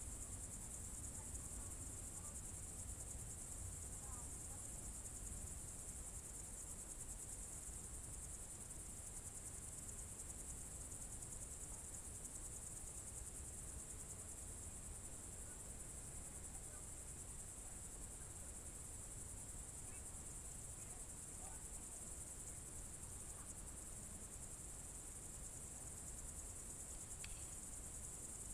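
Evening crickets trilling in a steady, unbroken high-pitched chorus, faint overall, with a low rumble underneath and a few faint brief chirps here and there.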